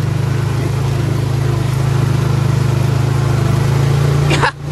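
Honda Rancher 420 ATV's single-cylinder four-stroke engine running steadily at low revs in first gear, crawling through a flooded mud trail. The engine sound cuts out briefly near the end.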